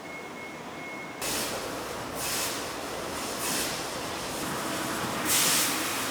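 Fiber laser cutting machine cutting sheet metal: a steady hiss that gets suddenly louder about a second in, then sharper hissing surges every second or so.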